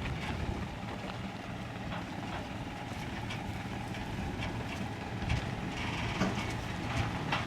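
An engine running steadily with a low hum, with scattered clicks and knocks over it that come more often in the second half.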